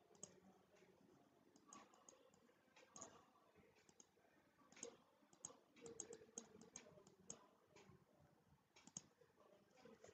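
Faint scattered clicks of a computer mouse, with a quick run of clicks about five to seven and a half seconds in.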